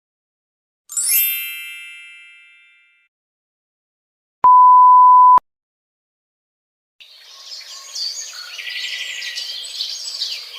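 Sound effects played one after another with silent gaps. First a bright bell-like ding that rings and fades over about two seconds. Then a one-second censor bleep, a single steady beep. Last, about three and a half seconds of busy high chirping and chatter.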